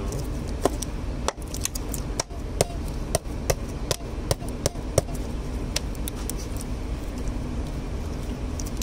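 Sharp, irregular plastic clicks and snaps as the PCV valve cover on a BMW N13 engine's valve cover is pressed down and its clips are seated, over a steady low hum.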